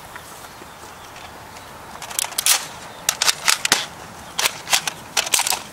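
A string of sharp plastic clicks and clacks, about a dozen in quick clusters starting about two seconds in, from an X-Shot Hawkeye foam dart blaster being cocked back and fired.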